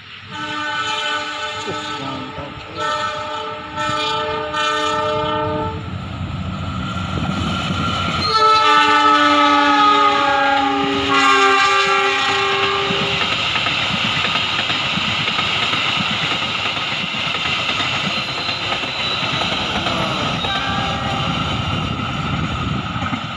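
Diesel locomotive air horn sounding several notes at once: two blasts in the first six seconds, then a longer blast about eight seconds in. Under the horn is the steady rumble and rail clatter of the train running by, and a short horn note comes near the end.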